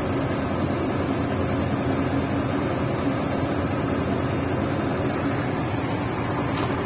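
Shacman tractor head's diesel engine idling steadily with the air conditioning switched on, a constant hum with a few low steady tones.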